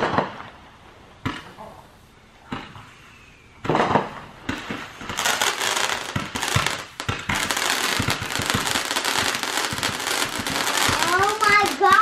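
Consumer fireworks going off: a few sharp single pops a little over a second apart, then from about four and a half seconds a dense, continuous run of crackling and popping as the firework shoots its stars up. A person's voice calls out briefly near the end.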